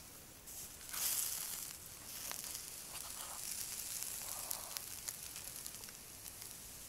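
Pork ribs on skewers sizzling over hot campfire embers as vinegar is poured over them, the drips hissing on the coals. The sizzle is loudest about a second in, then goes on more steadily with a few crackles.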